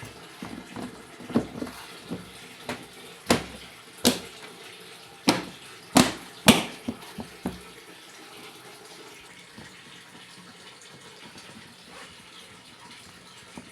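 Water running steadily, with a string of sharp knocks and clatters through the first half that stop about seven seconds in, leaving only the running water.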